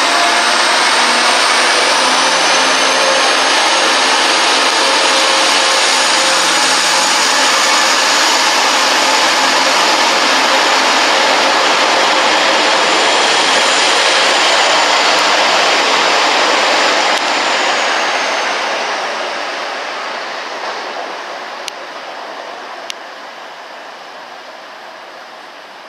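Class 185 diesel multiple unit pulling out under power: a loud, steady diesel drone with a high whine that rises in the first couple of seconds and holds. About 17 seconds in the whine falls away and the sound fades as the train draws off. Two sharp clicks come near the end.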